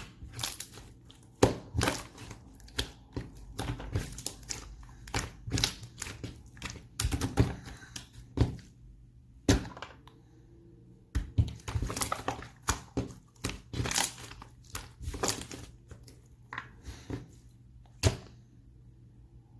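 Slime being squished and pressed by hand: irregular sticky pops and crackling clicks, with a pause of about two seconds near the middle.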